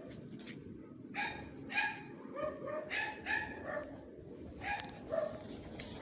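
A dog barking repeatedly in a quick run of short barks.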